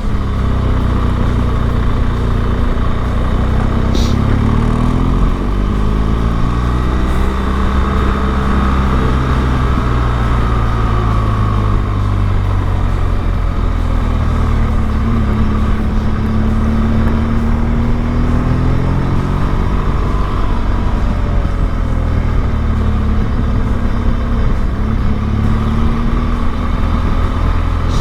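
Motorcycle engine running while riding, its pitch rising and falling as the bike speeds up and slows.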